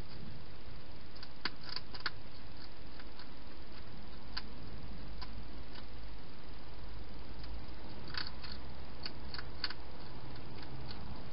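European hedgehog eating dry food, its chewing heard as scattered, irregular crisp clicks, some in quick runs, over a steady hiss.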